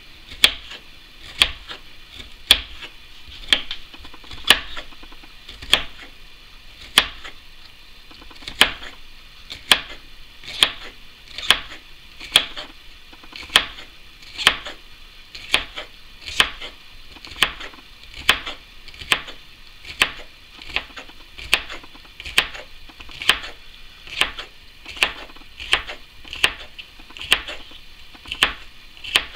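A kitchen knife thinly slicing bitter gourd on a bamboo cutting board: a sharp tap of the blade on the board with each slice, a steady rhythm of about one a second.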